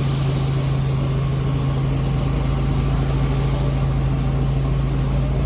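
Helicopter running steadily: a loud, even drone with a strong low hum.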